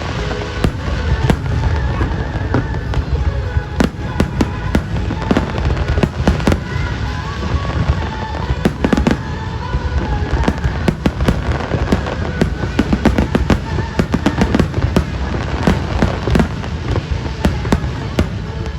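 Fireworks bursting in rapid, irregular bangs throughout, with music playing alongside.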